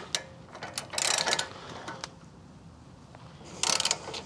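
Ratchet wrench clicking in short bursts as it turns the forcing screw of a ball joint press, pressing in a lower ball joint. One burst comes about a second in and another near the end.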